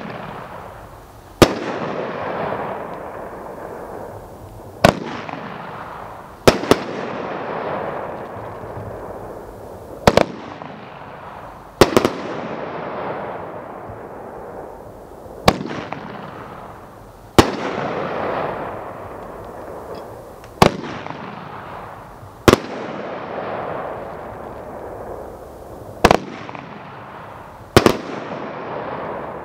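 Red Rhino 'Archangel' consumer fireworks cake firing: about eleven sharp bursts, one every two to three seconds, each followed by a noisy trail that fades before the next.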